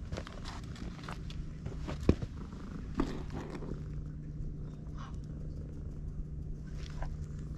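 Ginger-and-white tabby cat purring steadily while it is stroked, with a couple of sharp knocks about two and three seconds in.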